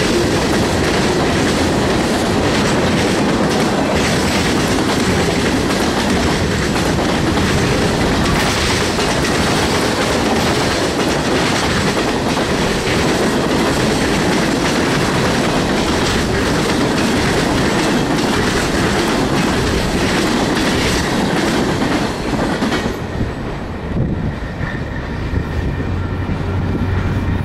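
Freight train cars rolling past at close range, a steady loud rumble and clatter of wheels on the rails. About 23 seconds in, the last car goes by and the noise drops away, leaving a quieter low hum.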